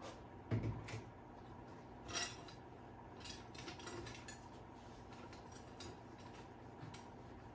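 Faint handling sounds of a rag rubbing oil into a wooden tool handle: a low knock about half a second in, a short scuff about two seconds in, then soft rubbing with light clicks.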